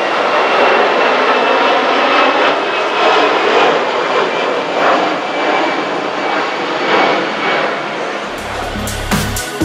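Airbus A320 jet airliner climbing out after takeoff, its engines making a steady rushing noise. About a second before the end, music with a deep bass and beat comes in.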